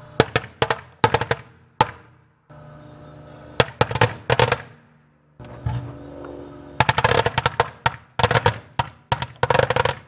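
Firecrackers going off inside a running Kenmore microwave oven: rapid sharp bangs in rattling clusters over the oven's steady hum. The bangs come in three bursts, at the start, around the middle and densest over the last three seconds.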